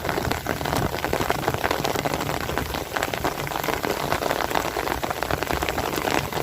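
Heavy rain pattering hard and steadily on a truck cab, a dense spatter of drops, heard from inside the cab.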